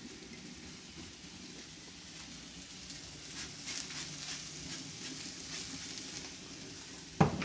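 Sliced onions sizzling on the hot steel plate of a Char-Griller flat iron griddle, with brief crackles around the middle as vegetable oil is poured on. A single sharp knock comes near the end.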